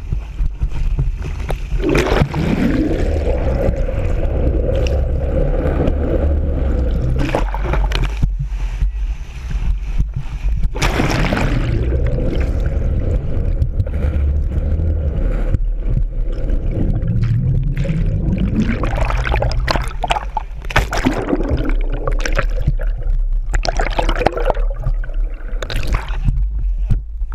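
Sea water rushing, splashing and gurgling around a GoPro camera as it goes under and breaks the surface again and again, over a steady low rumble.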